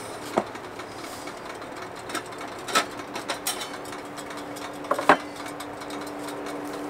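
Camp cookware being handled: a few light clinks and knocks of a pot and utensils, over a faint steady hum.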